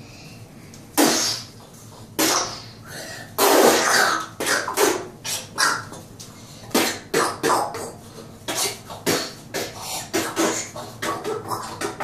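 A young child making kung-fu fight sound effects with his mouth: short, breathy bursts and hisses, a few at first, then quicker and more uneven, two or three a second in the second half.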